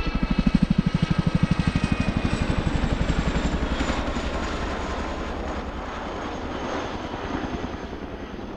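RAF Boeing CH-47 Chinook, a twin-rotor tandem helicopter, flying past: its rotors beat in a rapid, even chop, with a high whine over it that dips slightly in pitch and fades after about two seconds. The whole sound grows weaker as the helicopter moves away.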